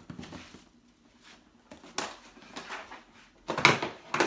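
Hands handling packaging: rustling and small knocks as boxed model wagons are taken from a cardboard shipping box and set down on a stack. A sharp tap comes about two seconds in, and the loudest rustling clatter comes near the end.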